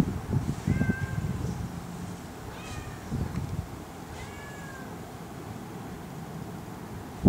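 A cat stuck high in a tree meowing: three short, high-pitched cries spaced a second and a half to two seconds apart, the last about halfway through.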